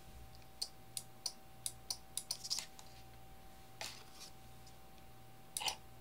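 About a dozen sharp, irregular clicks as the controller's push button is pressed repeatedly to run the small DC motor in short bursts. The clicks come thick in the first half and sparser after, over a faint steady whine.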